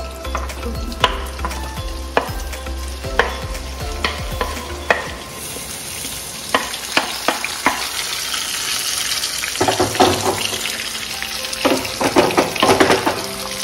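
Chopped onions hit hot mustard oil in a kadhai and start sizzling about five seconds in, after a few sharp clicks. A spoon then scrapes and knocks against the pan in short bursts as the onions are stirred in the frying oil.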